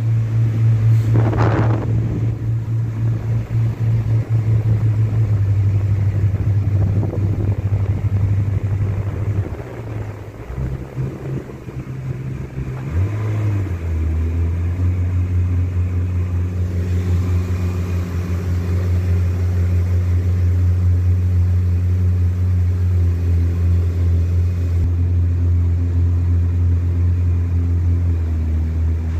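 Yamaha 242 jet boat's engines running with a steady low drone at slow cruising speed. About ten seconds in, the sound wavers and dips, and from about fourteen seconds it settles into a lower, steady drone as the boat comes off the throttle.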